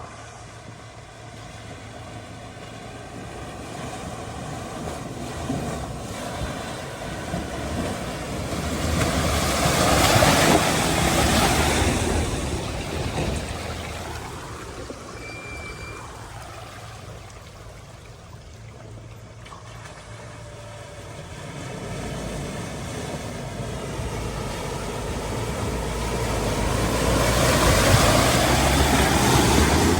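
Four-wheel-drive vehicles driving past: engine hum and tyre and water-splash noise rising and fading, loudest twice, about a third of the way in and again near the end.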